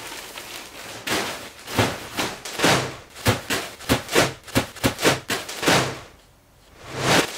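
Plastic-wrapped seat cushions being handled: a quick, irregular run of crinkling rustles of the plastic film with a few knocks. The rustling stops about six seconds in, and one more short rustle follows near the end.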